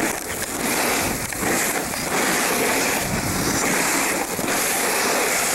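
Loud, steady rush of wind over a handheld camcorder microphone while skiing fast downhill, mixed with the hiss of skis on snow.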